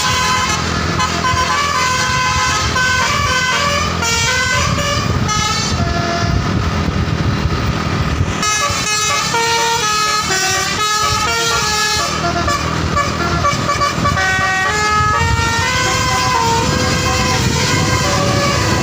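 Telolet bus horn playing a long tune of quick stepped notes over the low rumble of the bus's engine.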